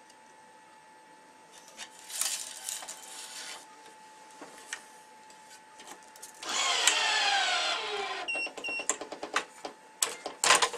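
Tennis racket main string being threaded through the frame's grommets and tensioned on a stringing machine: rubbing and a loud zipping stretch with a falling whine as the string is drawn through, then two short high tones, quick ticks and sharp clicks as the clamp is set.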